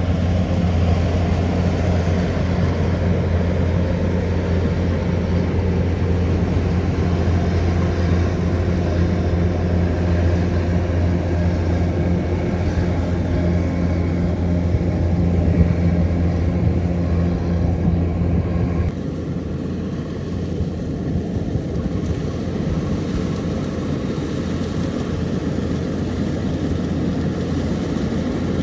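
Kubota DC-105X combine harvester's diesel engine running steadily under load as the machine harvests rice, a constant low drone with threshing and machinery noise over it. About two-thirds of the way through, the sound drops abruptly in level and loses most of its deep hum.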